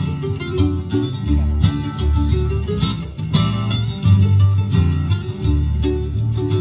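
Live bluegrass band playing: acoustic guitars, mandolin, banjo and upright bass picking together over a steady bass line.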